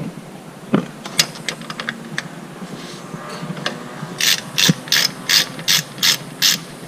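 Ratchet wrench working in short strokes, a few scattered clicks and then a steady run of ratcheting bursts about three a second, as the transmission drain plug is loosened.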